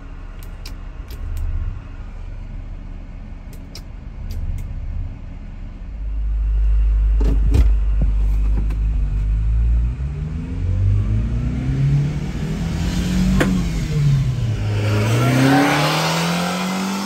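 Subaru Sambar kei truck's 660 cc four-cylinder engine running, with a few sharp clicks over the low rumble at first. Then it is revved up and down twice, its pitch rising and falling.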